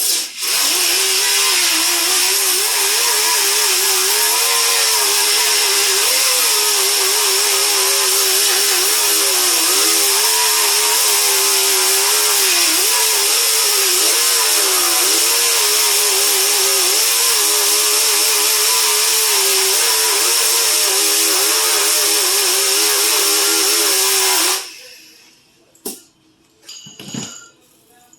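A handheld power tool running steadily for about 25 seconds with a hissing whine whose pitch wavers up and down, then cutting off abruptly, followed by a few light clinks.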